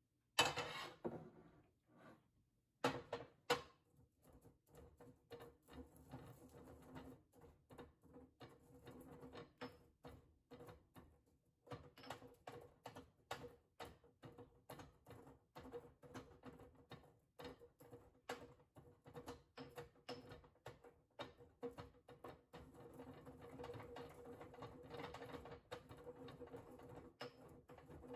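Marble mortar and pestle crushing toasted Szechuan peppercorns: a few sharp knocks in the first few seconds, then quick, steady grinding and tapping, with a ringing note from the stone bowl underneath.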